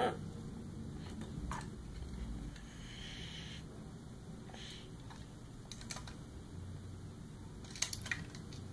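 Scattered small clicks and rattles of plastic Lego bricks being handled and pressed together, with a brief soft rustle about three seconds in and a quick run of clicks near the end.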